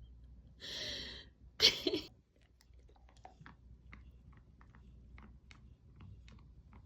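Dog chewing, a run of small irregular crunching clicks, after two short loud rushes of noise about a second in.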